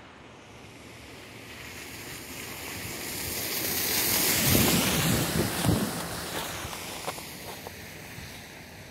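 A vehicle passes on a wet, snowy road. The hiss of its tyres swells to a peak about halfway through and then fades away.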